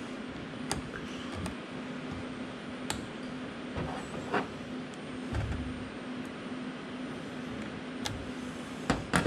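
Hand work on the metal drive-end flange of a copier drum unit: scattered sharp clicks and taps of small metal parts and pliers, a few seconds apart and a quick cluster near the end, over a steady background hum.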